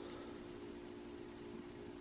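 Faint room tone: a steady hiss with a low, even hum.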